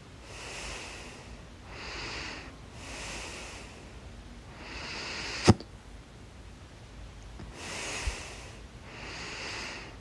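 A person breathing audibly in and out, six slow breaths, with one sharp, loud hiccup about five and a half seconds in.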